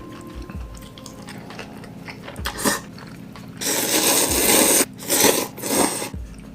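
Person slurping Korean ramen noodles close to the microphone: a short slurp about two and a half seconds in, a long one of about a second, then two quick shorter ones near the end, over a faint steady hum.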